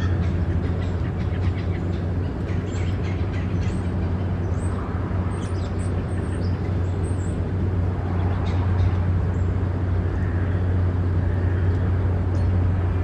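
A steady low hum, the loudest sound, runs throughout under faint, short, high bird chirps. A couple of short bird calls come about ten seconds in.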